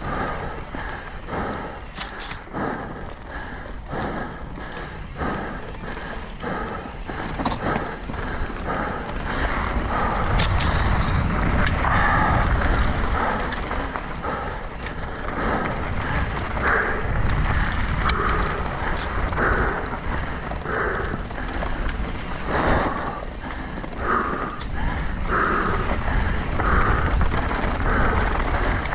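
A mountain bike being ridden on a trail: tyre and trail noise with wind on the camera microphone, and a regular pulsing about once or twice a second.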